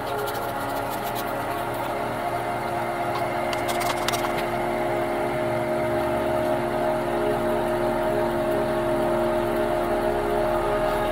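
Slow, calm background music with long held droning chords. A few light clicks come about three and a half to four seconds in.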